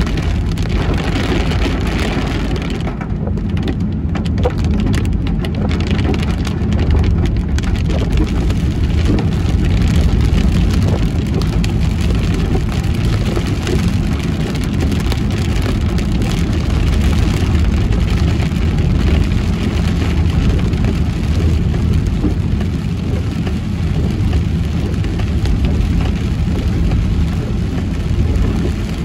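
Heavy rain falling on a moving car, heard from inside the cabin over a steady low rumble of road and engine.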